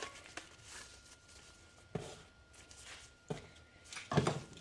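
A gloved hand mixing and squeezing moist seitan sausage dough in a steel bowl: soft squishing and glove rustle, with a few dull knocks, the loudest near the end.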